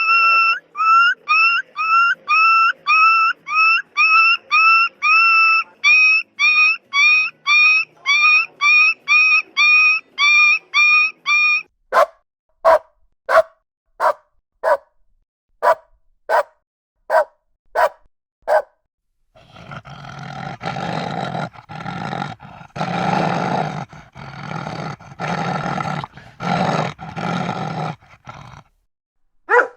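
A series of dog sounds: high-pitched yelps repeated about twice a second for about twelve seconds, then a string of single sharp barks, then a rough, noisy growling stretch of about nine seconds, and one more bark at the very end.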